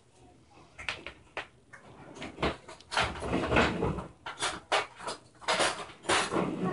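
Plastic baby push walker rattling and knocking as it is pushed and bumped across a tile floor: an uneven string of clacks, with a rougher rolling clatter in the middle.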